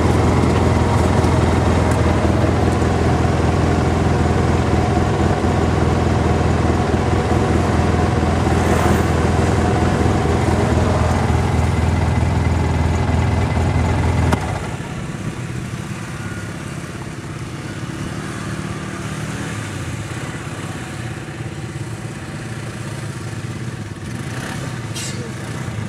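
ATV engine running steadily under throttle, then the throttle comes off suddenly a little past halfway and it drops to a quieter, lower running.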